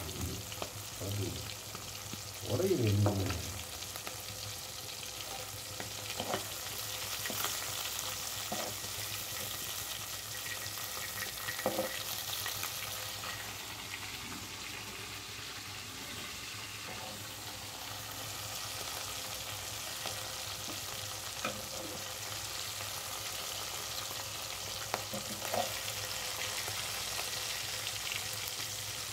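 Marinated ladyfish pieces shallow-frying in hot oil in a kadai: a steady sizzle of bubbling oil, broken by a few scattered clicks and taps.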